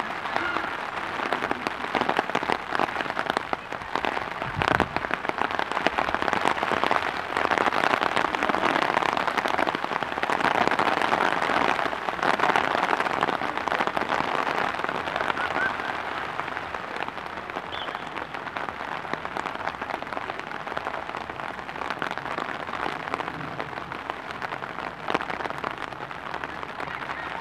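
Rain falling in a steady, dense patter that grows louder for a stretch and eases off in the second half, with a single thump about five seconds in.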